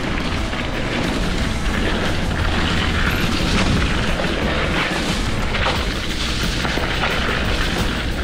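Wind buffeting an action camera's microphone during a mountain bike descent, a heavy low rumble over tyre and trail noise, with the bike knocking and rattling over bumps.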